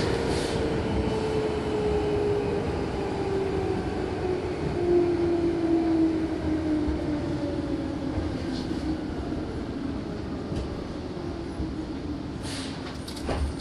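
Meitetsu 6500 series electric train heard from inside the car, slowing down: the traction motors' whine falls steadily in pitch over running and rail noise as the train brakes for a station. A few sharp clicks come near the end.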